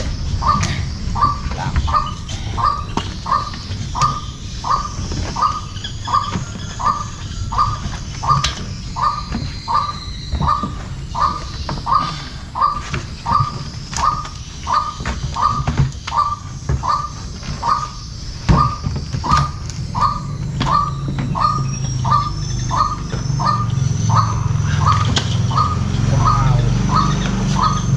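A bird calling over and over, one short falling note about every two-thirds of a second. Under it are scattered knocks and clicks of live snakehead fish being tipped from a plastic jug into a steel basin and handled.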